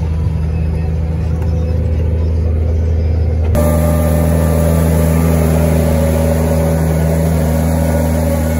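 New Holland tractor engine running steadily under load while pulling a seed drill, first heard inside the cab. About three and a half seconds in, the sound cuts to outside beside the tractor, where it is louder, with more hiss over the engine hum.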